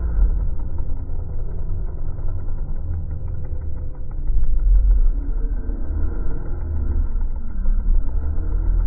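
Pit bike engines running on the track, heard muffled and distant over a steady low rumble, with their note rising and falling as the bikes ride.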